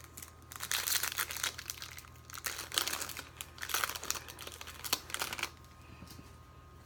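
Crinkling and rustling of a foil trading-card pack wrapper as it is handled, in several bursts that stop about a second before the end.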